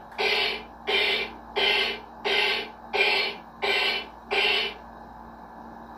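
Bop It toy's speaker playing a buzzy electronic beat, seven even pulses about one and a half a second, which stops about four and a half seconds in.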